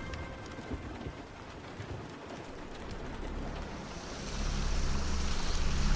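Steady hiss of heavy rain and water, with a low rumble that grows louder about four seconds in.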